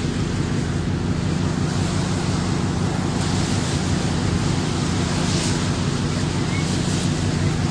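Steady rushing rumble of wind buffeting a phone's microphone, heaviest in the low end.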